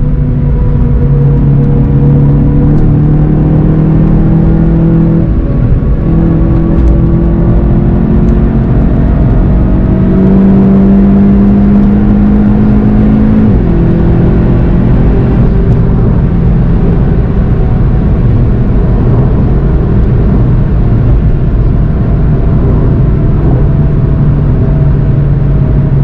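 Car engine heard from inside the cabin, accelerating through the gears with two upshifts about five and thirteen seconds in. After that it holds a steady drone at speed.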